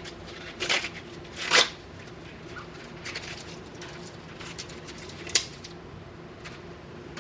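Husk being stripped by hand from an ear of corn soaked in hot salt water: a series of short rustling rips and crackles, the loudest about a second and a half in, with a sharp snap a little after five seconds.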